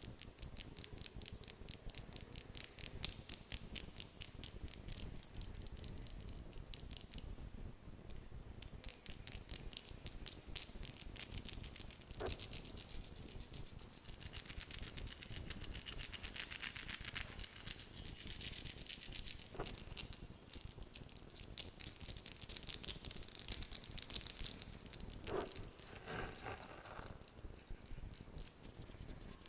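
Close-miked ASMR fingernail tapping: quick runs of light clicks, several a second, broken by short pauses, with a denser hissing, brushing stretch about halfway through.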